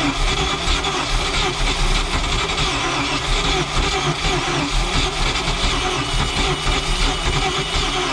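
Boat engine with a four-barrel carburettor running steadily with its air cleaner off.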